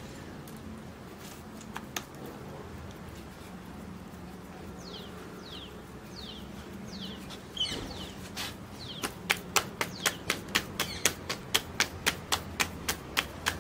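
Roti dough being slapped back and forth between the palms to flatten it for the tandoor. The pats come as a quick, even run of sharp claps, about three a second, starting about nine seconds in.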